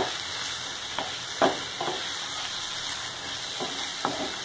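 Onion-tomato masala with turmeric and chilli powder frying in oil in a nonstick pan, a steady sizzle, with the short scrape of a spatula stirring through it every second or so. This is the bhuna stage, the spices being fried on a slow flame until the oil separates.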